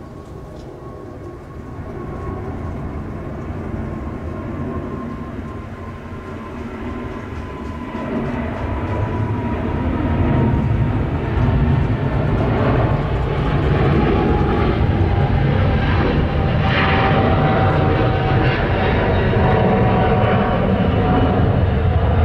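Twin-engine Boeing 777 jet airliner climbing out on departure at takeoff power. The jet noise swells steadily louder, about halfway through, and a thin whining tone slowly falls in pitch.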